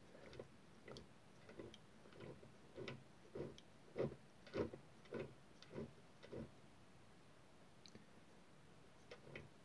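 Faint, regular clicking of a Roundhouse 'George' 16mm live steam locomotive chassis as its wheels and Walschaerts valve gear are turned by hand on rollers, about one click every half second or so. The clicking stops about two-thirds of the way in, and a couple of faint clicks follow near the end.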